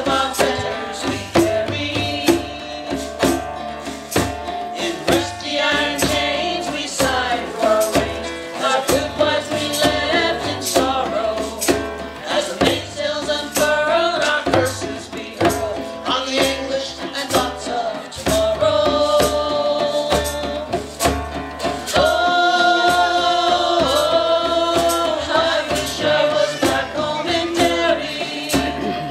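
Live folk music: voices singing over strummed acoustic guitar and two djembes beating a steady rhythm.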